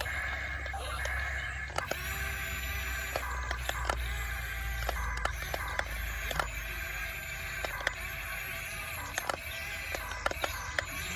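Small electric motors of an RC toy excavator whining, changing pitch as it drives and moves its arm, with frequent irregular clicks and knocks from its plastic tracks and parts.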